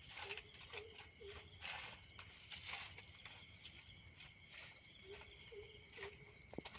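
Faint outdoor ambience: insects chirping steadily, with scattered light clicks and rustles.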